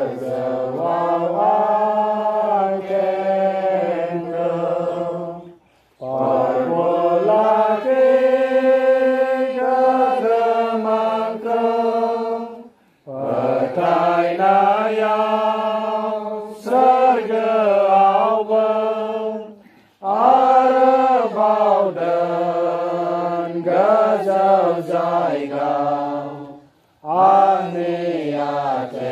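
A congregation singing a hymn together, unaccompanied, in phrases of about seven seconds with brief pauses for breath between them.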